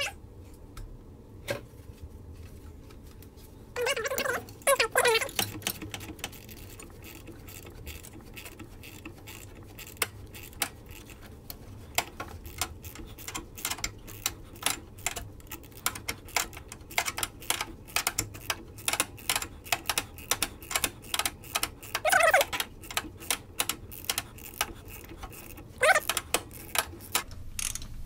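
Ratchet wrench clicking in quick runs as it turns the center bolt of a puller drawing a vibration dampener off an engine's crankshaft. A few short squeaks come in, about four seconds in and near the end.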